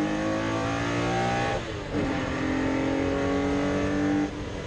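Porsche 964 race car's air-cooled flat-six engine accelerating under full load. Its pitch climbs steadily, dips at an upshift about a second and a half in, and climbs again. It lifts off near the end.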